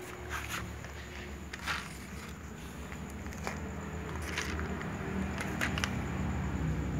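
Cats eating dry kibble from plastic dishes: scattered crunches and clicks of the food against the plastic, over a steady low hum.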